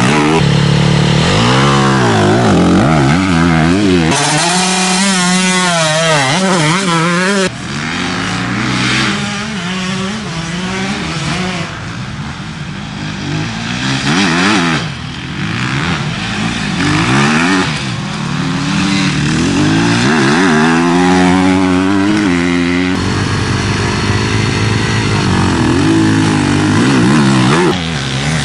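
Enduro motorcycle engines revving hard as riders race past, the pitch climbing and dropping again and again through the gears and throttle blips. The sound changes suddenly a few times as one bike gives way to another.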